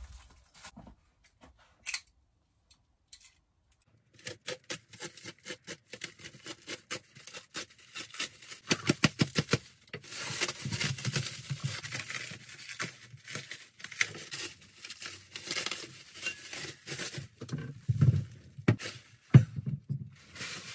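Plastic stretch wrap crackling and tearing as it is pulled off a motorcycle frame. It starts about four seconds in as quick crackles and becomes a dense, continuous crinkling from about ten seconds, with a sharp knock near the end.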